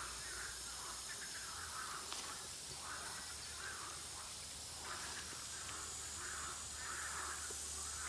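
Fine air bubbles from a DIY microporous-hose aeration diffuser fizzing and bubbling up through shallow pond water, in soft surges about once a second, over a low steady hum.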